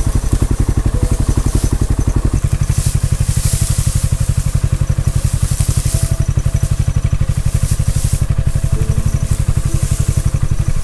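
Kawasaki utility vehicle's engine idling close by, a fast, even pulsing, with dry hay rustling as it is pulled off the bale.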